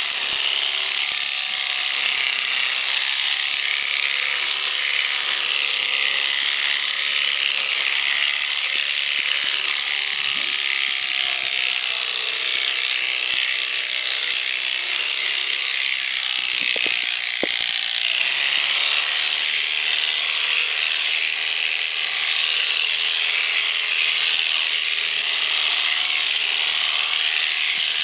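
Electric shearing handpiece running steadily, high-pitched, as its cutter and comb cut through alpaca fleece.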